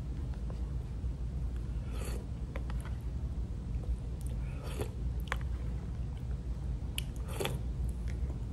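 Someone eating oatmeal with a spoon from a plastic tub: a few short scrapes and clicks of the spoon against the tub, and chewing, over a steady low rumble.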